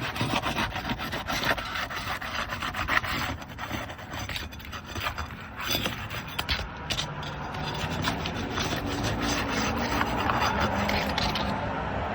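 A flat tool worked under laminated asphalt shingles, scraping and crackling irregularly as it breaks the sealant bond to lift the shingle courses.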